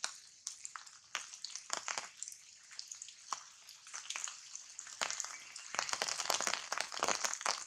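Rain falling on the leaves of the tree canopy: a steady high hiss with scattered irregular drips and ticks, growing denser and louder near the end.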